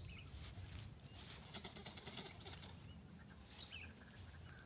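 Faint outdoor ambience: a few short bird chirps, one just after the start and another near the end, over soft rustling of grass underfoot.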